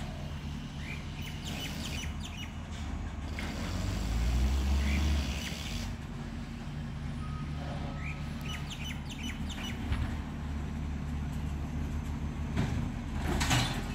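A garbage truck's engine running down the street, its low rumble swelling about four seconds in, with a short hiss near the end. Birds chirp now and then.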